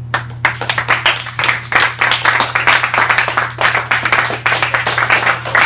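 A small audience of students applauding, with dense, quick clapping that starts right away.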